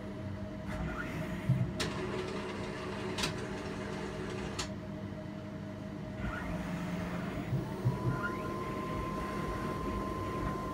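Powder-bed 3D printer (Z Printer) running: a steady mechanical hum with three sharp clicks about a second and a half apart. A little past halfway there are low thumps and a motor whine that rises and then holds as the print carriage travels across the powder bed.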